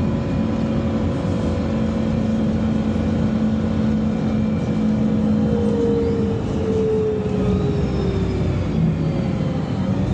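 Inside a LiAZ-5292.67 compressed-natural-gas city bus under way: engine and drivetrain running with a steady rumble and whine. The whine drops in pitch from about six seconds in as the bus slows.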